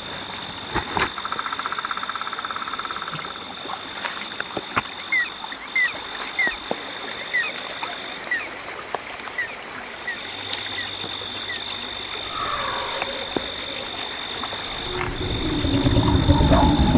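Night chorus of frogs and insects: a steady high insect trill, a fast pulsed frog trill early on, then a run of short chirping calls about twice a second. Near the end a louder low rumbling noise rises and falls.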